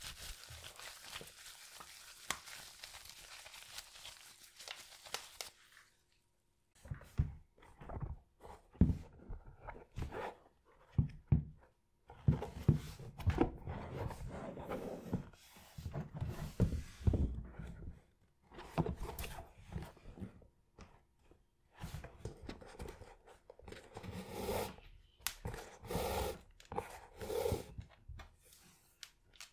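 Close-up handling sounds of a sneaker being cleaned: a few seconds of scratchy scrubbing with small clicks, then, after a sudden cut, irregular knocks, taps and rustling.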